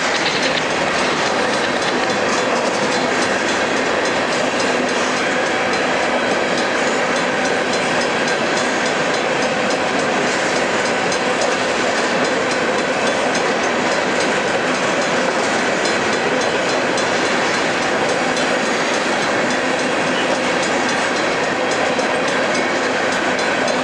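Covered hopper cars of a freight train rolling past: steady, loud noise of steel wheels running on the rails.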